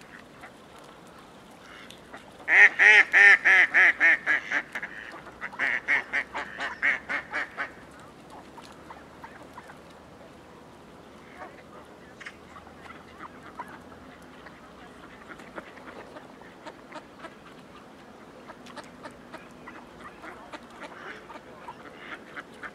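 Mallard hen quacking loudly in two quick runs of about six quacks a second, each run fading as it goes, the first a few seconds in and the second after a short pause. Afterwards only faint scattered clicks are heard.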